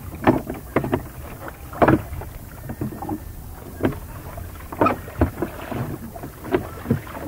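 A rowing boat being rowed: irregular short knocks and splashes from the oars, over a low rumble of wind on the microphone.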